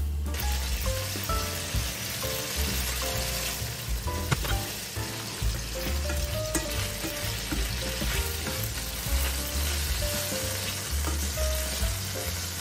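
Ground-beef patties sizzling in olive oil in a nonstick frying pan, with a few scrapes and knocks of a plastic spatula as they are turned. Light background music plays underneath.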